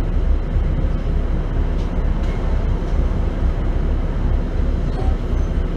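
London double-decker bus's engine running while the bus stands still, a steady low rumble heard from inside the upper deck.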